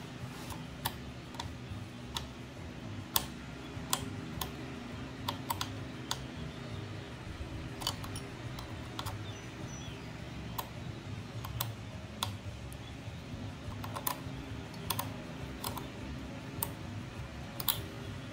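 Hand ratchet clicking in short, irregular strokes as the brake lever pivot bolt is worked loose, over a low steady hum.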